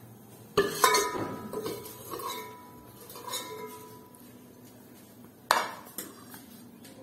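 Steel spoon clinking and scraping against a metal cooking pot and a ceramic plate as halwa is served out. A quick cluster of ringing metal clinks comes just under a second in, lighter clinks follow, and a sharp knock about five and a half seconds in.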